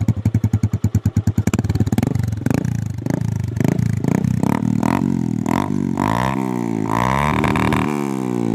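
Suzuki Gixxer's single-cylinder engine running through a modified exhaust silencer: a fast, even popping at first, then repeated throttle blips about twice a second, and the pitch rising and falling with the revs in the second half.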